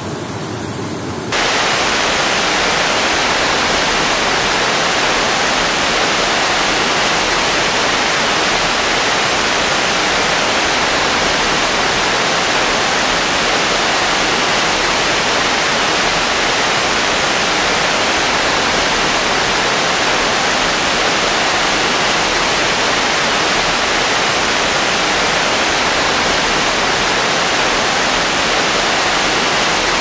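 Waterfall pouring and splashing down a steep rock face: a steady, loud rushing of water. It jumps louder suddenly just over a second in.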